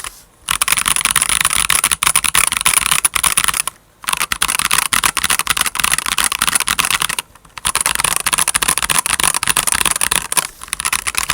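Akko 5075 mechanical keyboard being typed on quickly: a dense, fast run of key clicks and clacks, broken by short pauses about every three to four seconds.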